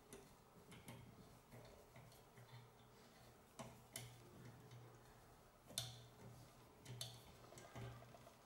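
Faint, irregular metallic clicks and ticks from a small hand tap wrench being turned to cut an M4 thread in a steel rod held in a vise.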